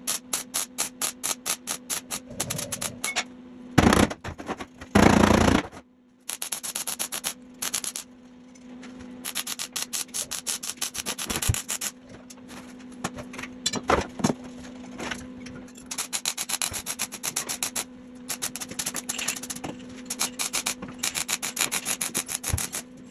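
Electronic background music with a fast, steady beat. Two short, loud, noisy bursts break in about four and five seconds in.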